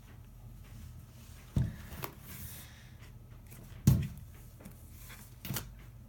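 A cat tearing and batting at paper: three dull knocks about two seconds apart, with a brief papery rustle just after the first.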